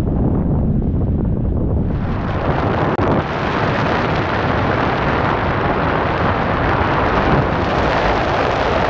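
Airflow buffeting a glider-mounted camera's microphone during hang glider flight, a steady loud rush. About two seconds in it turns brighter and hissier.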